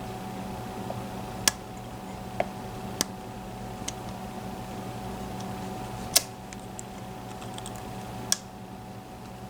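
Irregular sharp metallic clicks of lock picks working in the keyway of a Mul-T-Lock MT5+ cylinder while its sliders are being picked, about six in all, the loudest about six seconds in, over a steady low hum.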